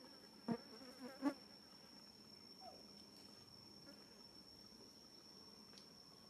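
Steady high-pitched insect drone, one unbroken tone throughout. Two short wavering voiced sounds, about half a second and just over a second in, stand out above it.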